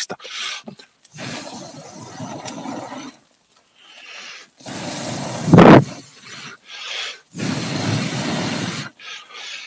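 Meat sizzling on a charcoal grill: a hiss that comes and goes in uneven stretches, with a louder short rush of noise about halfway through.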